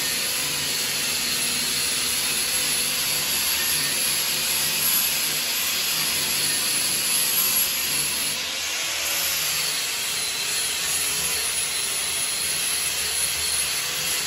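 Small handheld grinder with an orange sanding disc running against a steel truck frame rail, scrubbing dirt and old finish off the metal: a steady scraping noise with a faint whine under it.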